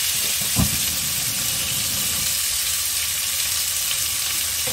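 Rack of spare ribs searing in a hot frying pan, with a steady sizzle. A single knock sounds about half a second in.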